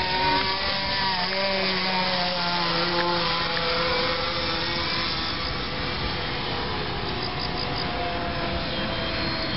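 Small two-stroke glow engine (an OS 15) of a radio-controlled model airplane in flight, a steady high buzz. Its pitch slides down between about one and four seconds in as the plane passes, then holds level as it flies away.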